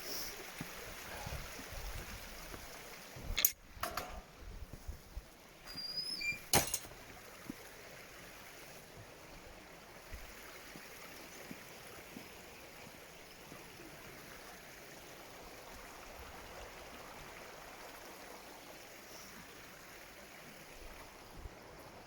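A stream running steadily, with a few sharp knocks in the first seven seconds.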